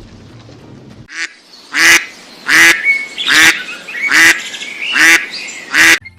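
A duck quacking seven times in an even series, a little under a second apart, the first quack softer than the rest.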